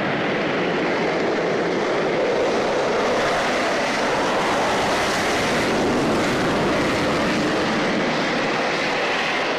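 Concorde's four Rolls-Royce/Snecma Olympus 593 turbojets at takeoff power: a loud, steady jet roar as the aircraft takes off.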